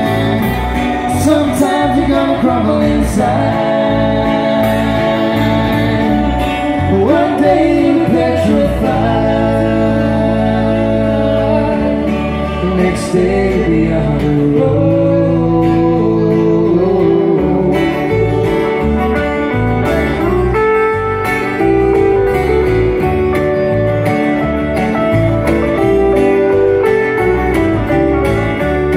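Live folk-rock band playing: several strummed acoustic guitars with electric guitar and drums, and singing over them.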